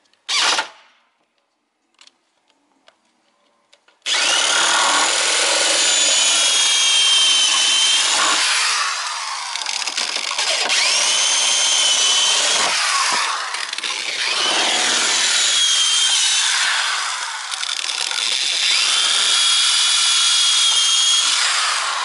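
Corded electric drill running: a quick blip, then after a few seconds a long continuous run drilling through the van's wooden ceiling planks. The motor whine rises and falls as the bit bites, easing off briefly three times.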